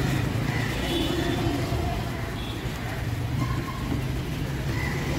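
Roadside traffic noise: a steady rumble of passing vehicles.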